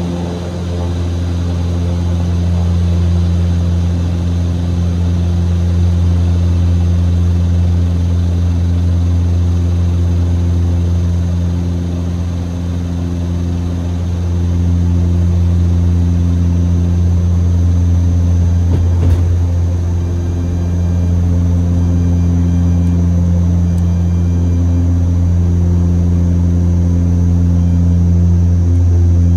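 Antonov An-26's twin turboprop engines and propellers droning steadily, a loud low hum with even overtones. A single short click about two-thirds of the way through.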